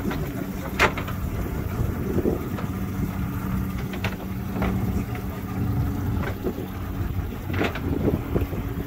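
Motorboat engine idling with a steady low hum, with a few sharp knocks on the boat about a second in, around four seconds in and near the end.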